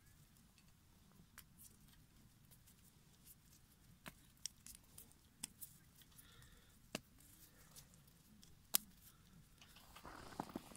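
Near silence, broken by a few faint, sharp ticks and taps scattered through it. A soft rustling noise rises near the end.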